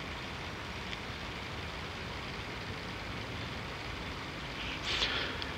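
Steady shop background hiss, with a short rasp of blue painter's tape being pulled off the roll near the end.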